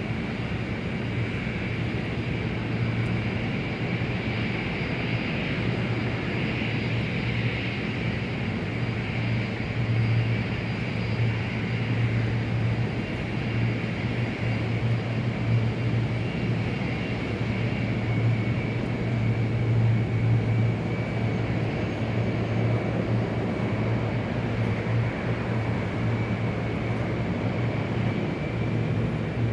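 Large-airport ambience dominated by the steady hum of aircraft engines, with a thin high whine running over it and no sudden events.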